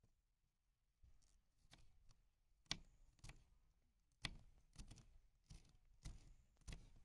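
Small kitchen knife slicing green garlic on a wooden cutting board: a series of sharp taps of the blade on the board, the firmer ones about every half-second, starting about a second in.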